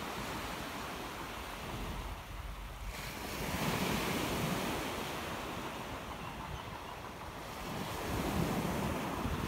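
Small sea waves breaking and washing onto a pebble beach, swelling louder twice, with wind rumbling on the microphone.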